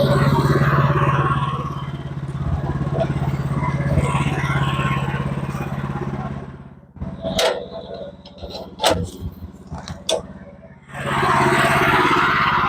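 Sawmill running under load as a log is sawn: a steady engine hum with saw noise over it. About seven seconds in it drops away to a quieter spell of a few sharp knocks and clatters, then the mill comes back in loud near the end.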